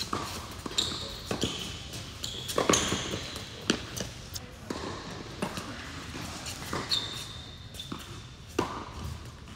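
Tennis singles rally on an indoor hard court: sharp knocks of racquets hitting the ball and of the ball bouncing, coming irregularly about every half second to a second. Short high squeaks of players' shoes on the court fall between the hits, and everything echoes in the large hall.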